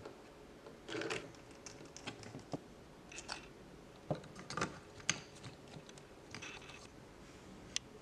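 Faint, irregular clicks and taps of small plastic parts being handled and fitted together, with a few short rustles and one sharper click near the end.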